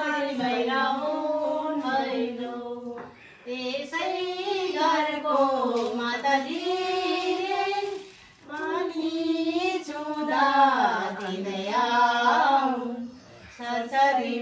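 A group of women and girls singing a Bhailini, the Nepali Tihar festival song, together without instruments. They sing in phrases of about four to five seconds, with short breaks between them.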